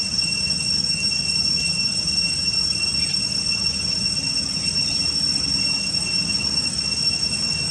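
A steady high-pitched drone made of two unbroken tones, over a low steady hum.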